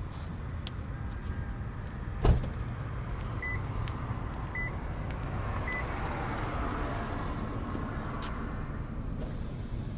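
Steady low background rumble with one sharp thump a little over two seconds in, then three short high beeps about a second apart.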